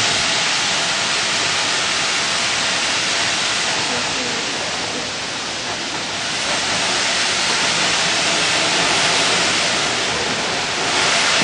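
Steam hissing loudly and steadily from BR Standard Class 7 Pacific steam locomotive 70013 Oliver Cromwell. It is a dense, even hiss with no clear pitch, easing a little about five seconds in.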